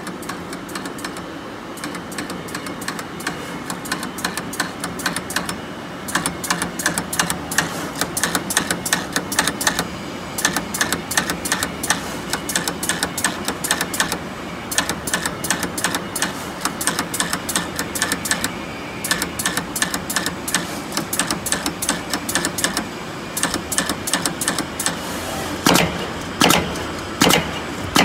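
CNC oscillating-knife leather cutter at work: rapid, irregular clicking and tapping from the tool head over a steady machine hum. Near the end, several loud separate knocks come roughly every half second to second.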